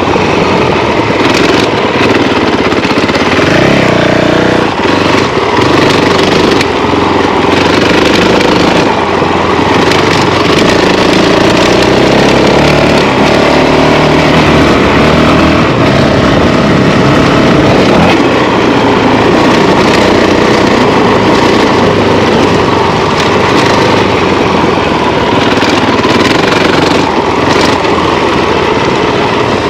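Honda CRF450L's single-cylinder four-stroke engine running under way on a dirt trail, its note rising and falling with the throttle.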